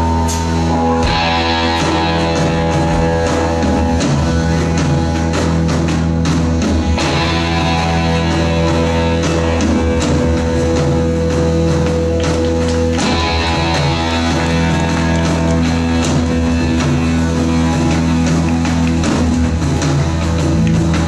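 Rock band playing live, loud and continuous: electric guitars, bass, keyboards and drum kit, getting brighter and fuller in two stretches.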